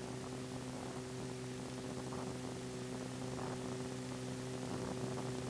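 Steady electrical mains hum with a layer of hiss: the background noise of a crudely transferred old film soundtrack.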